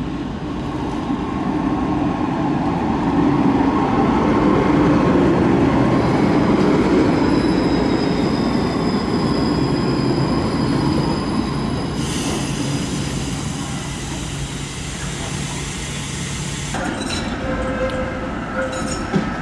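A modern low-floor tram running on street track, approaching and passing close, louder toward the middle, with a faint high whine. After a cut, an older PCC-type tram set rolls through a curve with wheel squeal.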